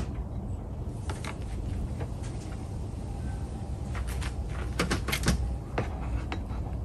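Scattered clicks and clanks of hand tools and hard parts being worked in a car's engine bay while the battery is being changed, with a quick run of sharper clicks about five seconds in.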